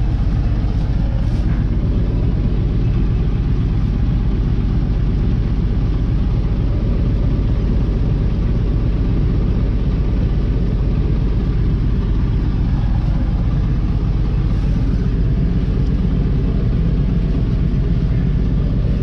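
Large diesel farm engine idling steadily, a constant low rumble with no change in speed.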